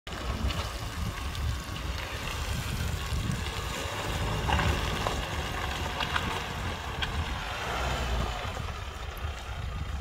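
Nissan Navara pickup driving slowly through muddy ruts, its engine running steadily, with gusty wind buffeting the microphone.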